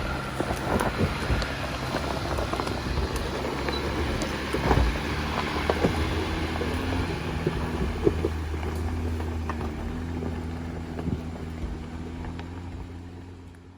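Jeep Gladiator Rubicon's engine running at low speed, crawling over a rocky trail, with scattered knocks and crunches from the tyres and chassis on rock. It fades away near the end.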